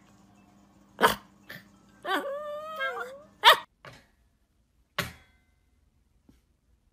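A small white poodle barks, gives a wavering, whining howl, and barks again. After a pause, about five seconds in, a wire dog crate's door clacks once as a puppy nudges its latch, with a faint tick after.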